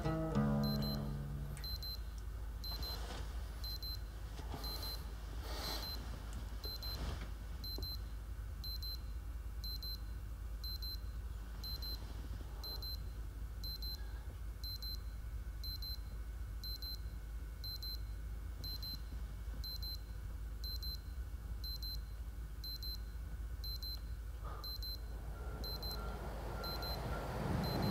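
Digital bedside alarm clock sounding: high-pitched electronic beeps repeating at an even, quick pace, going off unanswered while the sleeper stirs and reaches for it.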